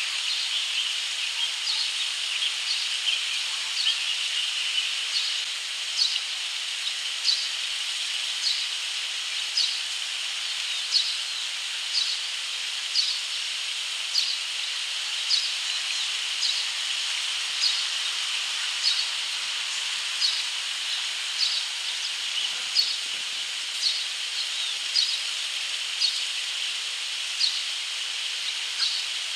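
Barn swallow fledglings giving short high chirps, repeating about once a second over a steady high hiss.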